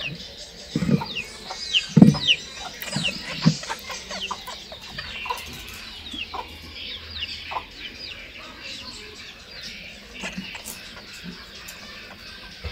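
Chickens clucking and chirping, many short falling chirps one after another. A few dull knocks in the first four seconds, the loudest about two seconds in.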